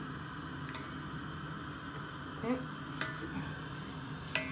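Water boiling in a stainless steel pot with a crab in it, a steady faint bubbling hiss. A few light clicks and knocks of the pot break through, the sharpest near the end.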